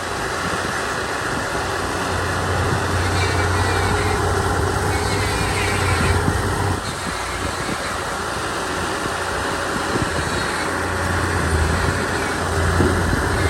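Komatsu D31 bulldozer's diesel engine running under load while pushing dirt, its low hum swelling and easing, with a few sharp knocks from the machine.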